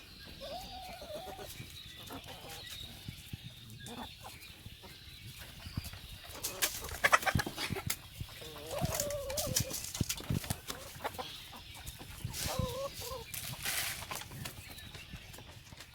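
Laying hens clucking, with a few short calls that rise and fall in pitch, over scattered clicks and knocks, the loudest about seven seconds in.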